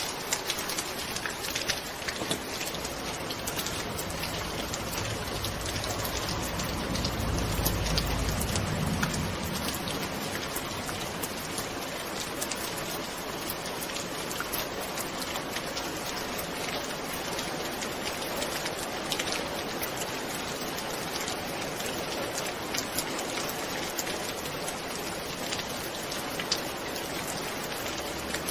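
Steady rain, with many individual drops ticking through the patter. A soft low roll of distant thunder swells and fades about six to ten seconds in.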